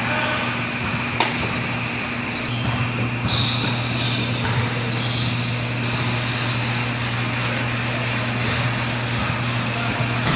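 A steady low hum under an even rushing noise, with a faint click about a second in.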